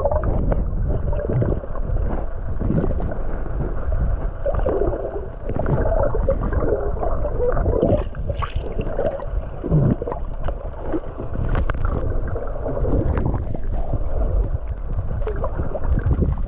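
Muffled underwater sound from a camera held just below the surface: water sloshing and gurgling, with scattered sharp knocks and splashes.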